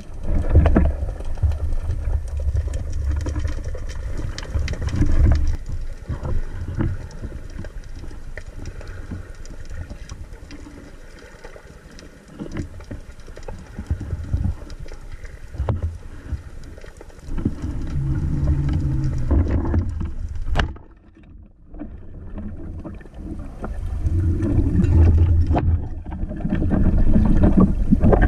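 Muffled underwater noise picked up by an action camera in its waterproof housing during a freedive: a low rumble of moving water with scattered small clicks and knocks, dying down briefly about two-thirds of the way through.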